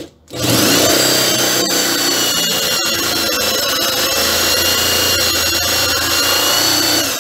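Handheld electric drill boring a shallow counterbore into pallet wood with a Forstner bit. The motor whines up to speed just after the start, runs steadily while the bit cuts, and winds down near the end.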